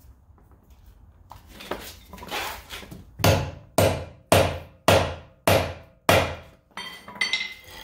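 Hammer blows driving a lug-nut removal socket onto a rounded, stripped lug nut so that its grooves bite: a couple of softer hits, then six hard strikes about two a second, and a few lighter, ringing taps near the end.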